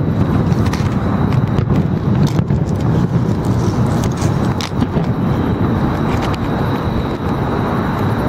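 Steady, loud outdoor background rumble with no clear single source, and a faint steady high tone running through it.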